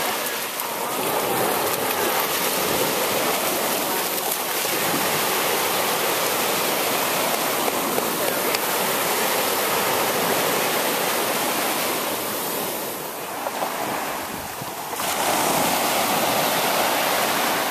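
Small waves breaking and washing up the beach, a steady rush of surf that eases for a couple of seconds near the end.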